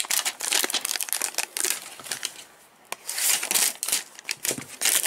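Clear plastic wrapper crinkling loudly in quick bursts as it is handled and pulled off a cardboard baseball-card hanger box, with a short pause about halfway through.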